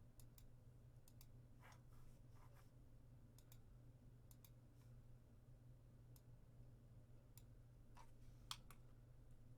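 Faint, irregular clicks of a computer mouse, over a low steady hum.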